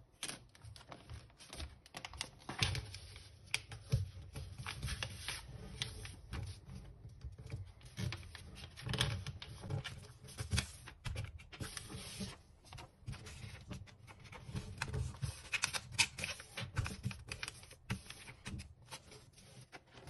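A sheet of paper being folded by hand into a paper airplane: crisp rustling and crackling with irregular sharp taps as the creases are pressed flat against a wooden tabletop.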